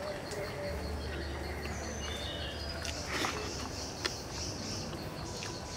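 Forest ambience: insects chirping in a steady pulsing rhythm, with a few short bird calls. Two brief clicks come about three and four seconds in.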